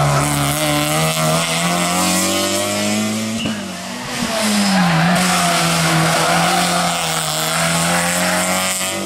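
Toyota Yaris rally car driven hard through tarmac hairpins: its engine note rises, drops and climbs again as it is worked through the bends, with tyre squeal over it.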